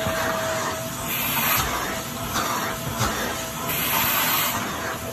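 Upright vacuum cleaner running, its hose wand drawn over a cat's fur: a steady motor whine under a rushing suction hiss that swells and eases several times.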